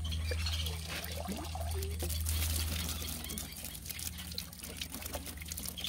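Water trickling and dripping from a freshly hauled, wet cast net, with a steady low hum underneath.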